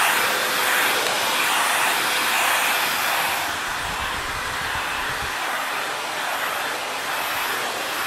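Handheld vacuum cleaner running steadily: a constant rush of air with a faint steady tone under it. A little quieter from about halfway through, with a brief low rumble around then.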